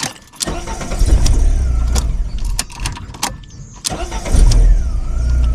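Mk3 VW Golf GTI's petrol engine starting and running in two spells, dropping back briefly about three and a half seconds in before picking up again. It is cutting in and out because a loose plug at the back of the fuse box was interrupting the starting circuit, which the owner takes for the cause of the intermittent no-start.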